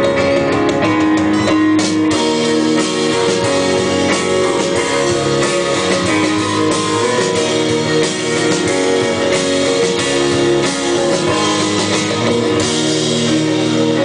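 Live rock band playing an instrumental passage: strummed acoustic guitar over electric bass and a drum kit keeping a steady beat.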